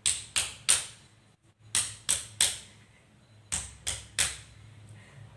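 Chest percussion: a cupped hand clapping on a patient's back to loosen sputum. The sharp claps come in quick groups of three, with a group repeated about every two seconds.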